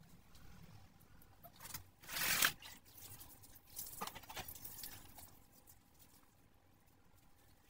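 Water poured from a plastic mug splashing over a goat's wet coat and onto the ground, loudest about two seconds in, followed by a few smaller splashes.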